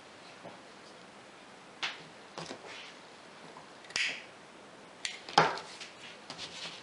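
Light handling noises of satin ribbon and a needle being worked by hand: a scattering of short clicks and brief rustles, the sharpest a little past five seconds in.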